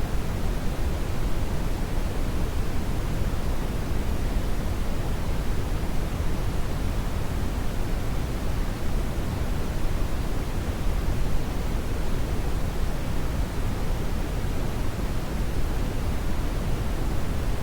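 Steady synthetic brown noise: an even, unchanging rushing hiss weighted heavily toward the bass, with no events or rhythm.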